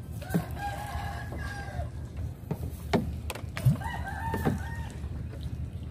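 Roosters crowing: two long crows, the second a little higher in pitch, over a low rumble and a few short knocks.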